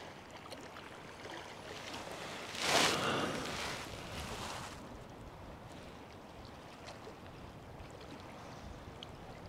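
Outdoor wind and water noise on a fjord shoreline, with one louder rush of noise about three seconds in that lasts a second or two.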